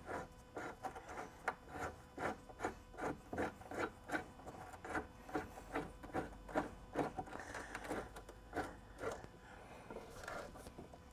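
Ball-end T-handle hex key turning greased bolts down into the clip nuts of an aluminum rock slider. The metal scrapes faintly in a rhythm of about three short strokes a second as each turn is made by hand.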